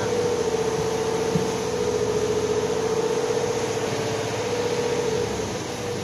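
Fishing boat's engine running under way with a steady drone, over a constant rush of wind and water; the drone's tone fades about five seconds in.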